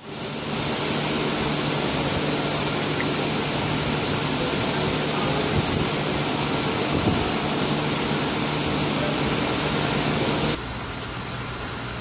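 Steady hiss of water running down a model railroad layout's scenery waterfall, with a low steady hum underneath. About ten seconds in the sound suddenly drops in level and loses its hiss.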